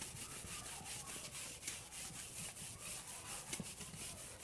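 Faint scratching of writing on a surface, a run of short, irregular strokes.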